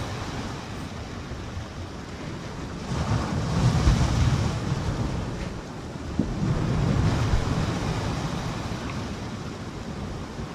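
Sea waves washing against a rocky shore, rising twice in slow surges, with wind rumbling on the microphone.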